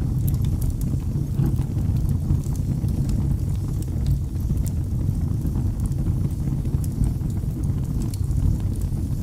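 Wood fire burning in a fireplace: a steady low rumble of the flames with scattered small crackles and pops.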